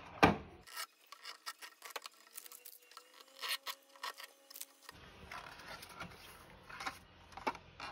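Light plastic clicks and rubbing from a Wi-Fi router's antennas being moved on their hinges and the router being handled.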